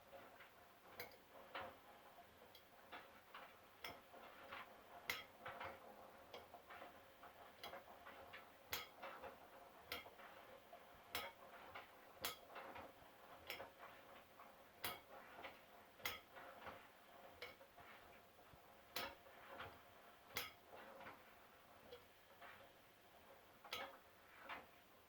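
Faint, irregular light clicks and taps, roughly one or two a second, over a faint steady hum, from a washing machine.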